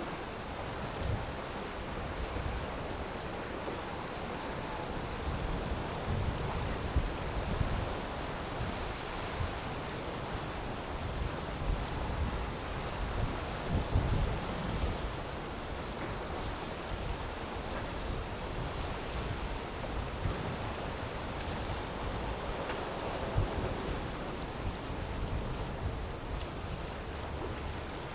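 Strong wind gusting on the microphone, with uneven low rumbles over the steady noise of rough waves.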